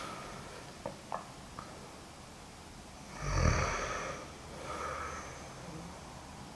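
A sleeping woman snoring: one loud snore about three seconds in, followed by a softer second one a second later, with a few faint clicks before them.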